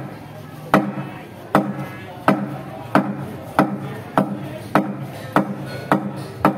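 Ceremonial percussion struck in a steady, gradually quickening beat, about ten sharp strokes, each followed by a short low ringing tone.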